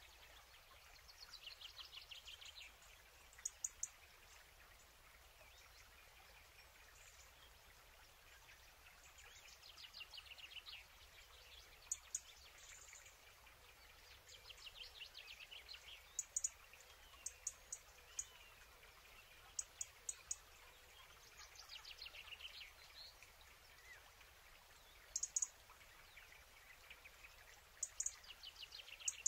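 Faint bird song: a short descending trill heard four times, with brief high chirps in between.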